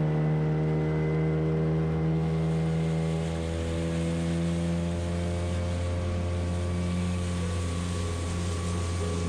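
Outboard motor of a small boat running steadily while underway, a low even engine note.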